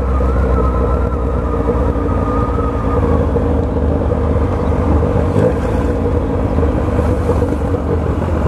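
Motorcycle engine running steadily at low, even speed, heard from the rider's seat in slow street traffic.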